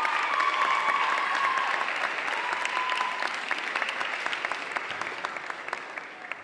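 Audience applauding, with a held cheer or whoop over the clapping in the first three seconds; the applause dies away near the end.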